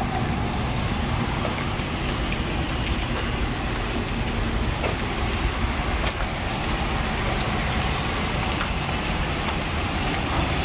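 Steady low outdoor rumble of ambient noise, like distant road traffic, with a few faint ticks.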